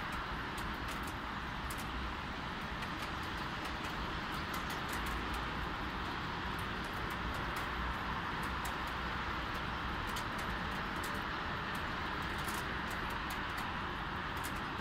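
Light rain with a steady hiss and a low hum of distant road traffic, with scattered close drops ticking throughout.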